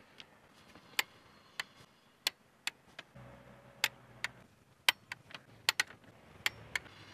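Torque wrench clicking as intake manifold bolts are tightened to 10 Nm: a series of single sharp clicks at an uneven pace, roughly two a second.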